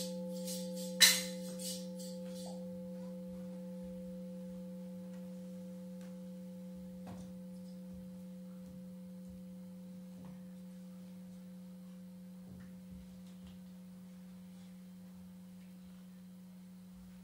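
Metal percussion ringing on in a long, slowly fading sustained tone made of several unevenly spaced pitches, with a short high jingling rattle about a second in and a few faint ticks later.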